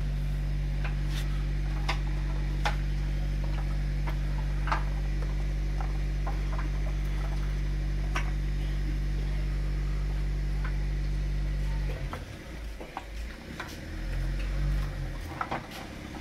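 A steady low hum that cuts off suddenly about twelve seconds in, with scattered light clicks and knocks as cooked trotter pieces are handled in clay pots.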